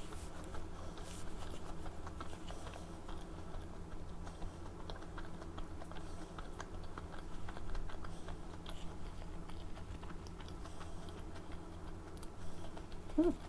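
Close-miked chewing of dumplings: many small wet mouth clicks and smacks over a low steady hum, with a short throat sound near the end.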